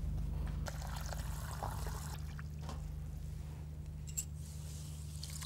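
Water trickling and splashing softly as sago pearls are rinsed in a bowl, with a few faint clicks, over a steady low electrical hum.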